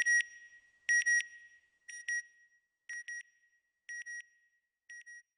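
Electronic alarm-style beeping: a high double beep about once a second, six pairs in all, fading quieter with each pair.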